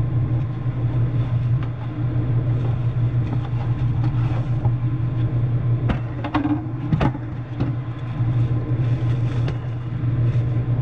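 A steady low hum runs throughout. About six to seven seconds in, a few short clicks and rustles come from the new 12-volt fan being unboxed by hand.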